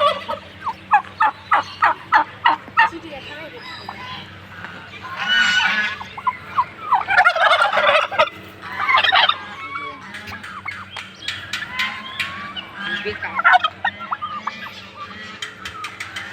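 Turkeys gobbling: a quick run of short calls in the first few seconds, then several louder, longer gobbles spread through the rest, with smaller calls between them.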